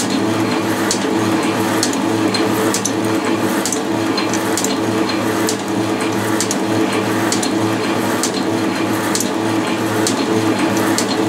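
Metal shaper running, its ram stroking back and forth as the tool cuts across a metal block. A steady machine hum with a regular tick about every two-thirds of a second.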